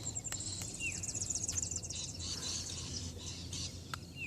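Small birds chirping, with a rapid high trill of ticking notes in the first two seconds and short falling call notes about a second in and again near the end.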